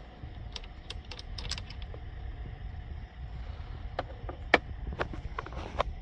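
Small plastic clicks and taps from hands working the wiring connectors on a steering wheel hub. They come in a quick cluster in the first two seconds and again from about four seconds in.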